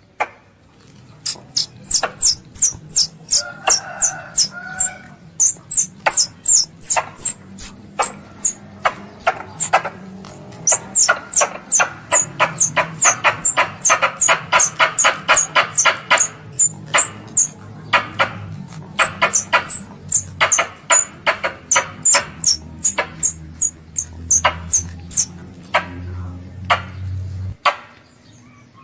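Squirrel calling: sharp, high chips repeated about three to four times a second, each dipping slightly in pitch, with a faster run of rapid clicks in the middle, played as a lure call to bring squirrels in.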